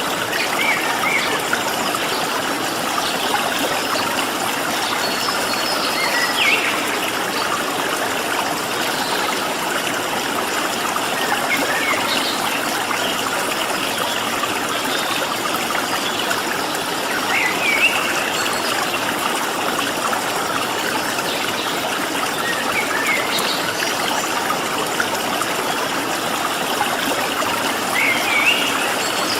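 Stream of running water flowing steadily, with short bird chirps now and then above it.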